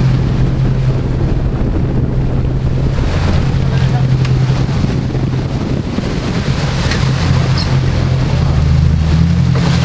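Sportfishing boat's engines droning steadily, their note shifting a little after about six seconds, with wind buffeting the microphone and water churning in the wake.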